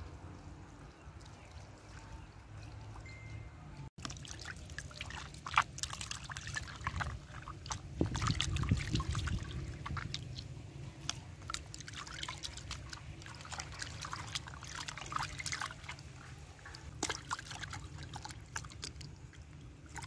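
Raw pig intestines being washed by hand in a plastic basin of water: irregular sloshing, squelching and dripping as they are squeezed and lifted out. Quieter for the first few seconds, then busier.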